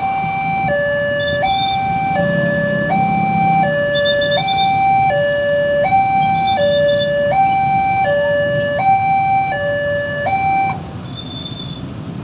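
Railroad crossing warning alarm sounding a two-tone electronic 'ding-dong', alternating between a lower and a higher tone about every 0.7 s. It cuts off abruptly near the end, leaving a low rumble.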